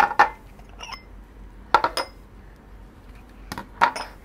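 Small glass bowls being set down one after another on a tabletop, each landing with a short glassy clink and knock.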